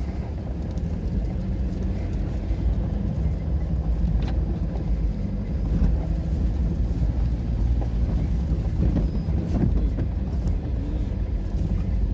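A motor vehicle's engine running with a steady low drone.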